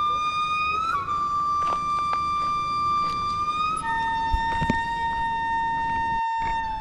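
Music: an instrument holds one long steady note, then drops to a lower held note about four seconds in.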